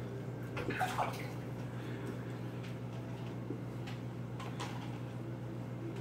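A large aquarium's filter and pump running: a steady hum under water trickling and bubbling. There is a brief splash about a second in and a fainter one near five seconds.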